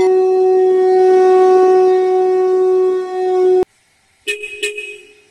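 A conch shell (shankha) is blown in one long, loud, steady note that cuts off suddenly about three and a half seconds in. Two brief ringing strikes follow near the end.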